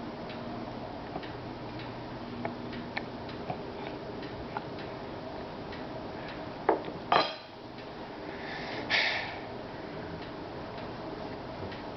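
Scattered light clicks and taps, like small objects on a hard surface, over a steady low hum. There are two louder knocks about seven seconds in and a short hiss near nine seconds.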